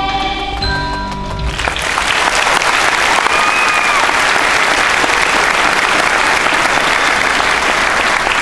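The final held note of a children's choir song and its accompaniment dies away about a second and a half in, and an audience breaks into steady applause.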